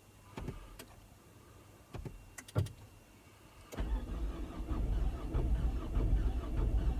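A few sharp clicks, then from about four seconds in a car's starter motor cranking the engine, which keeps turning over without firing: the car won't start.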